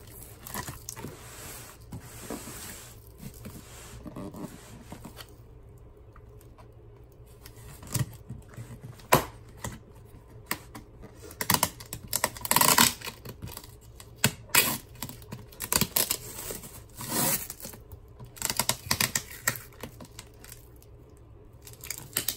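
Clear packing tape being cut with scissors and torn from a cardboard box, the tape and cardboard crinkling and scraping in short, irregular bursts with brief quieter pauses.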